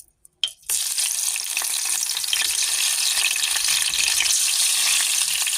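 Seasoned zucchini slices sizzling as they go into hot frying oil; the sizzle starts suddenly just under a second in and then runs steadily.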